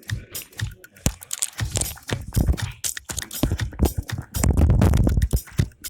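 Music with many sharp, uneven percussive clicks and heavy low thumps, heaviest about two seconds in and again near the end.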